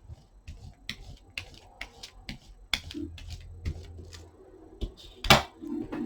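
A run of sharp, irregular clicks and taps, the loudest a single sharp knock about five seconds in.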